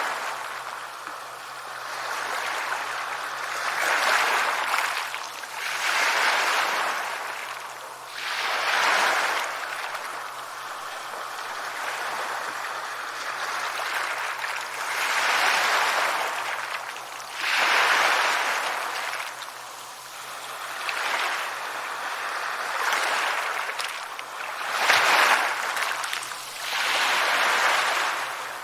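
Sea waves breaking and washing on a shore, the wash rising and falling every two to three seconds.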